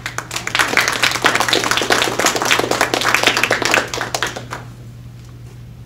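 Audience applauding, many hands clapping quickly and irregularly for about four and a half seconds, then dying away.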